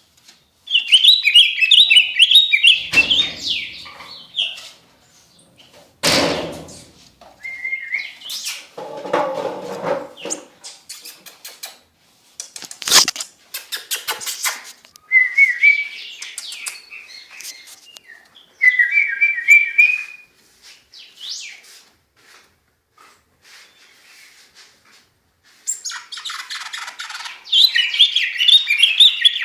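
A caged songbird kept as a 'cardenal azul' singing fast trilled phrases in several separate bursts, the longest at the start and near the end. A few sharp knocks fall between the phrases.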